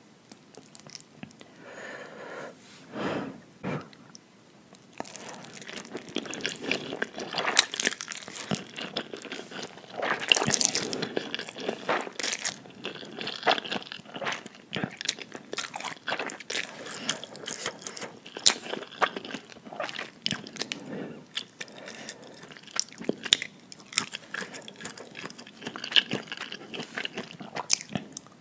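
Close-miked eating of spicy instant noodles: slurping strands in and chewing, with many small wet clicks and smacks of the mouth.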